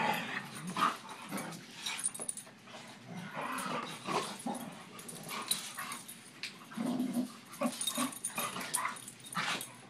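Two dogs in rough play, vocalising in short irregular bursts: the noise of normal play-fighting, not a real fight.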